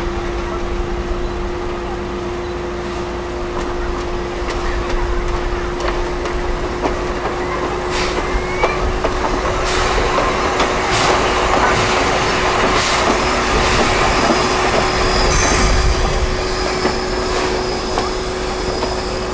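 JNR Class C11 tank steam locomotive, C11 227, moving slowly along the yard tracks, with a steady hum and hiss throughout and a run of sharp clicks and knocks of its wheels over the rails from about eight seconds in. It grows louder toward the middle as it draws level.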